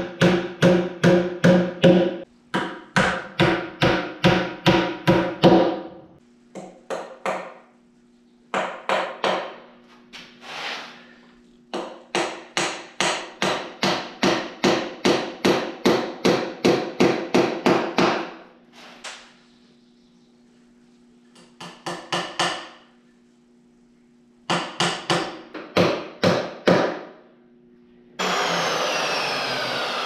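Claw hammer driving nails through 2x2 cedar trim into a rough-sawn cedar post, in quick runs of blows about four a second with short pauses between runs. Near the end the hammering stops and a steady whirring noise starts.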